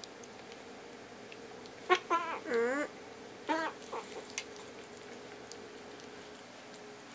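Kitten meowing in protest while its teeth are brushed: a quick run of short cries about two seconds in, one of them dropping in pitch, then two briefer cries a second later.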